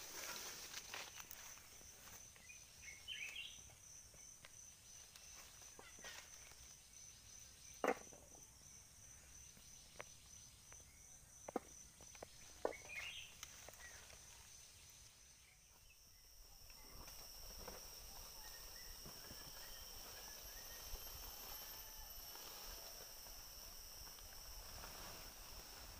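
Faint, high, pulsing insect trill, with a few sharp clicks near the middle.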